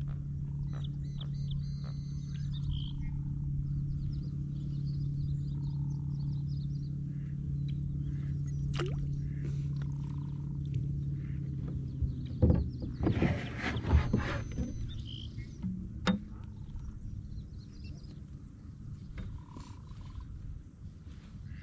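Faint chirping animal calls over a steady low hum, then a cluster of loud knocks and a short burst of noise about halfway through as a small fish is handled and let go from a plastic fishing kayak.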